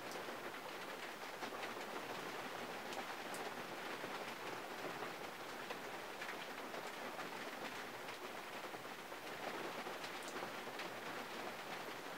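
Rain falling on the roof and glass of a 1951 Mercury, heard from inside the cabin: a steady hiss scattered with the sharp ticks of single drops striking.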